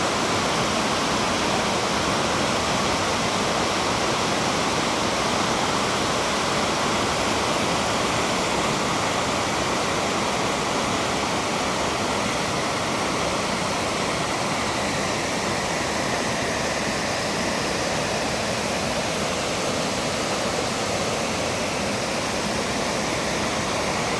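Waterfall with a 70-foot drop, its water falling and splashing in a steady, loud rush.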